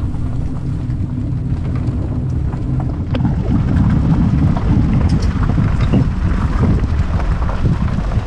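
Utility trailer being towed over a gravel drive: tyres crunching on the gravel and the trailer and its load rattling, over the low hum of the towing vehicle's engine. The crunching and rattling grow louder and rougher about three seconds in.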